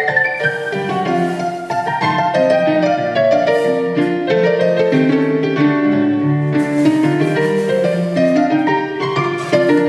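Background instrumental music led by piano, with many quick changing notes.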